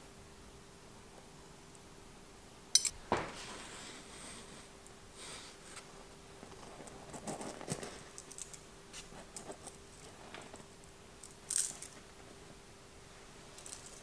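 A few light metallic clinks from small metal bike parts being handled, about three seconds in and again near the end, with soft rustling of fur and fabric in between, over a faint steady hum.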